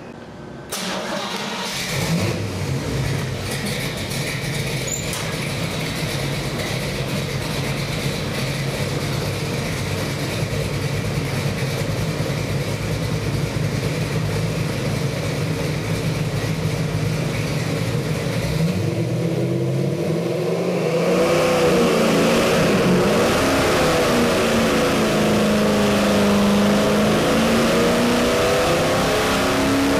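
Carbureted Chevy 383 stroker small-block V8 with a hydraulic roller cam running on an engine dynamometer. It idles steadily at about 800 rpm, then from about 20 seconds in it pulls under load in a dyno sweep test, with the pitch rising as the revs climb past 3,500 rpm.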